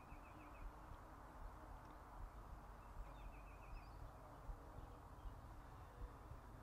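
Near silence with faint low background noise. A bird gives a quick run of high chirps twice, once at the start and again about three seconds in.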